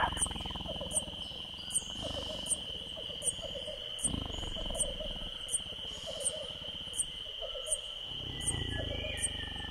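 Jungle night ambience: a steady high insect drone, a sharp chirp repeating about every three quarters of a second, and rows of short croaking calls, with a low rumble near the start and again near the end.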